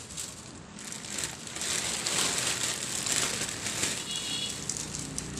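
Dry pancit canton noodles crackling and crunching as they are pressed down into simmering soy-sauce broth in a wok, over a steady hiss of the bubbling liquid that grows louder about two seconds in.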